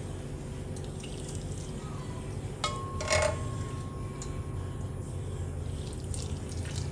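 Ramen broth being ladled from a pot into a wooden bowl: liquid pouring and splashing, with a metal ladle knocking against the pot about two and a half seconds in, leaving a short ringing tone, and a louder clatter just after. A steady low hum runs underneath.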